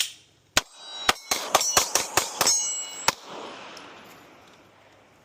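A rapid string of about nine gunshots, with steel targets clanging and ringing with a steady metallic tone between the shots. The ringing and echo fade out over about two seconds after the last shot.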